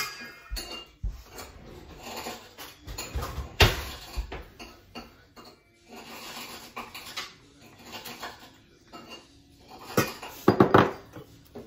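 Kitchen utensils clinking and scraping against a stainless steel mixing bowl and a small ceramic bowl as melted butter is poured in and scraped out with a silicone spatula. There is a sharp clink about three and a half seconds in and a quick run of knocks near the end.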